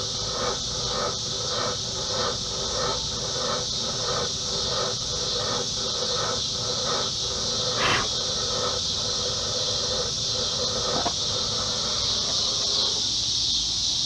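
Steady high-pitched chirping of insects. Under it runs a quieter rhythmic pulse about three times a second, which stops near the end, and there is one short sharp sound about halfway through.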